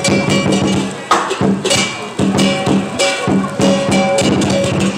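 Music with a steady drum beat and percussion strikes over held tones.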